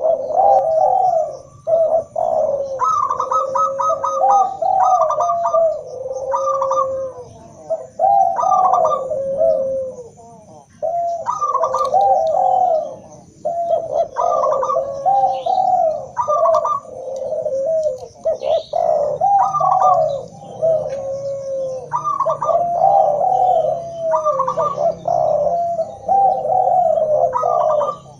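Several doves cooing over one another, a mix of zebra dove (perkutut), spotted dove (derkuku) and Barbary dove (puter). Their coo phrases repeat every second or two, some broken into quick stuttering notes.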